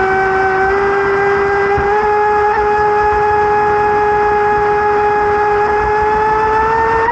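Radio-controlled boat's motor running at a steady high speed, a constant high whine that rises slightly in pitch near the end and then settles back.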